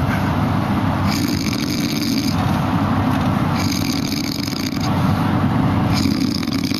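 A person snoring in a steady rhythm, about one breath every two and a half seconds, each with a low rasping snore and a hissing phase.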